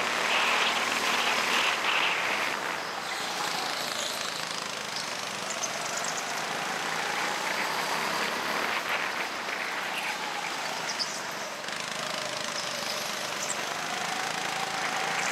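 Go-kart engine running under throttle, its pitch slowly rising and falling as the kart speeds up and slows through the corners, over a steady rush of noise.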